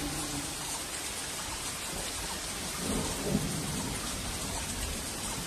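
Steady monsoon rain falling, with low rumbling thunder beneath it that swells briefly about three seconds in.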